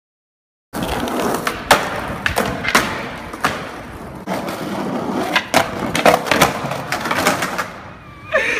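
Skateboard rolling over street pavement, its wheels rumbling steadily, with a number of sharp clacks and knocks from the board. The sound starts abruptly after a moment of silence.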